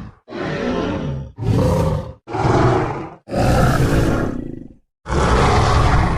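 Made-up dinosaur sound effects for an Einiosaurus: five separate deep roaring calls, each lasting about a second, with short silent gaps between them.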